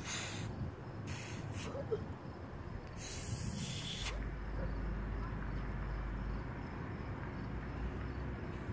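Steady low outdoor rumble with three short hissing bursts. The longest burst lasts about a second, some three seconds in.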